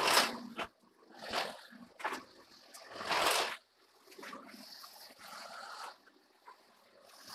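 Handling noise from a heavy steel column hung on forklift chains: a few short, irregular scrapes and clanks as it is pushed by hand into place over the boring mill's table.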